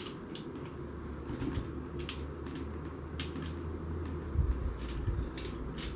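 Scattered small metal clicks and taps as an Allen key works M4 screws loose from a SABRE M20 blaster's metal shell, over a low steady hum, with a duller knock about four and a half seconds in.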